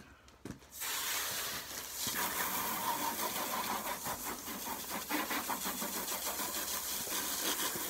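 Garden hose spraying water over a car to rinse it, starting suddenly under a second in and then running as a steady hiss.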